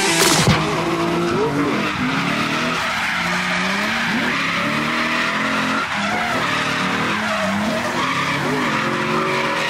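Drift car engine revving up and down again and again as the car slides, over a steady screech of tyres sliding across the pavement.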